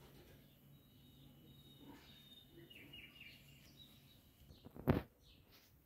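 Quiet background with small birds chirping faintly, thin high notes off and on. About five seconds in comes a single brief, loud thump.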